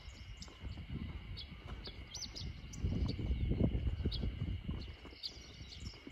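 Small birds chirping in short, scattered high notes over a steady high hum. A low rumble swells to its loudest around the middle.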